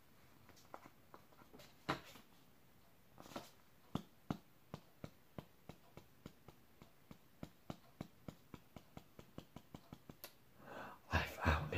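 Quiet handling of a large plastic ring binder: a run of faint clicks, about three a second, then a louder rustle and knock near the end as the binder is moved.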